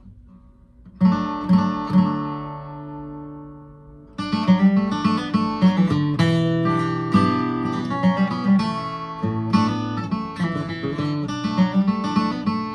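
Steel-string acoustic guitar capoed at the second fret and played from C shapes in the key of D, picking the song's opening cross-picking lick. A few notes ring out and fade over the first seconds, then a steady run of picked notes follows from about four seconds in.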